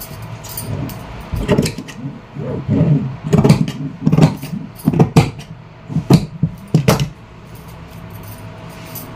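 Large tailor's shears cutting through folded fabric: a run of sharp, irregular snips as the blades close. The snipping stops about seven seconds in.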